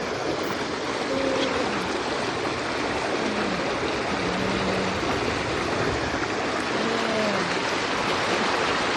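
Swollen floodwater stream rushing, a steady, continuous loud rush of fast-flowing water.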